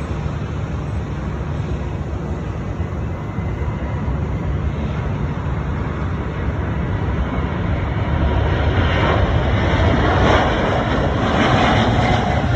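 Jet airliner engines running in a steady rumble that grows louder over the last few seconds as the plane draws nearer.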